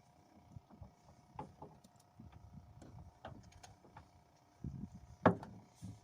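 Faint scattered knocks and clicks, the sharpest a single knock about five seconds in, over a low steady hum.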